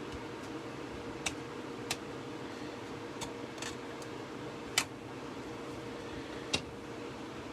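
About six short, sharp clicks and taps, a second or so apart at uneven intervals, the loudest a little past the middle: small wooden pieces being handled and set down on a hard work surface during glue-up. Under them runs a steady background hiss with a faint hum.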